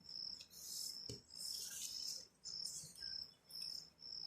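Faint cricket chirping: a high, steady trill broken into short repeated pulses, with a soft tap about a second in.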